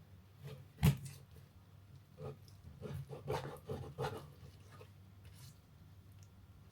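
Kitchen handling sounds: a sharp knock about a second in, then a run of light clicks and scrapes, like dishes and utensils being moved and set down.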